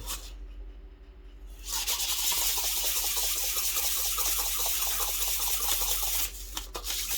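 A steady spraying hiss starts about two seconds in, with a short break near the end, over a low steady hum.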